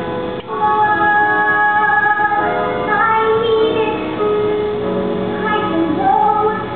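A woman singing a musical-theatre song over instrumental accompaniment, holding long sustained notes.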